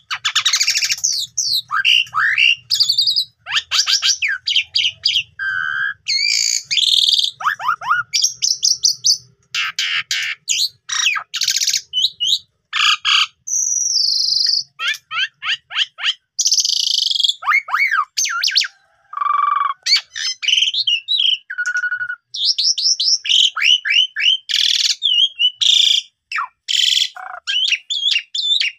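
Asian pied starling (jalak suren) singing a long, varied song without pause: quick chattering, rapid clicking trills, rising and falling whistles and short held notes.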